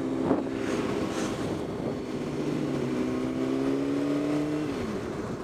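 Honda CBR600RR inline-four engine running under way, its note rising gradually, then dropping away a little before the end as the throttle is eased. Wind rushes past the microphone.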